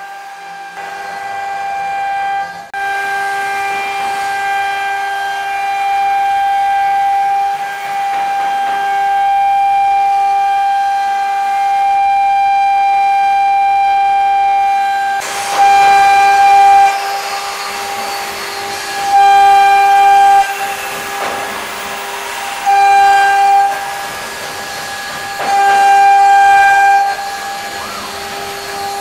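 CNC router spindle running with a steady high-pitched whine and a hiss of cutting as its small bit carves grooves into a wood panel. In the second half the whine grows louder four times, for a second or two each, with more cutting noise.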